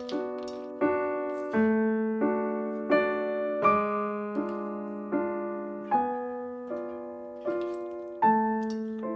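Background piano music: gentle chords struck roughly every three-quarters of a second, each ringing and fading before the next.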